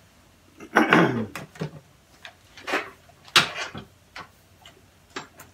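Irregular metallic clicks and knocks of hand tools being handled and fitted on an air engine's cylinder parts. There is a louder clatter about a second in and a sharp click a little after three seconds.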